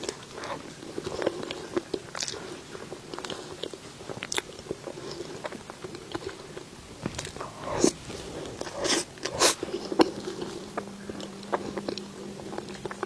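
Close-miked ASMR eating sounds: a person biting and chewing cake and desserts, with irregular wet mouth clicks and smacks, a few sharper and louder ones past the middle.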